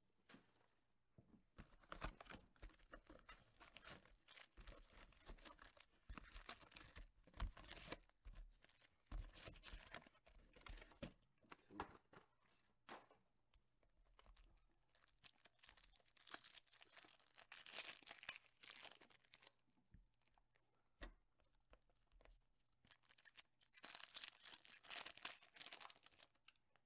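Faint crinkling and tearing of foil trading-card pack wrappers handled in the hands, in irregular bursts that are busiest near the end.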